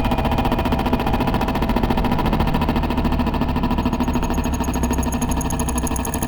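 Electronic fixed-media music: a dense, steady low rumble with a fast grainy flutter, like a machine texture, joined about four seconds in by high, rapidly pulsing tones.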